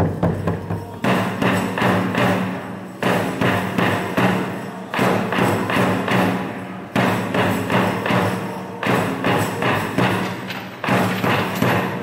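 Ritual drumming for a bugaku dance: a steady drum beat of about three strokes a second, with a louder accented stroke about every two seconds.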